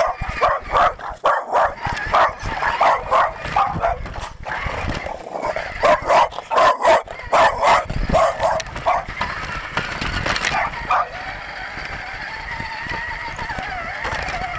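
A dog barking loudly and repeatedly, about two to three barks a second, mixed with yips. The barking stops about ten seconds in.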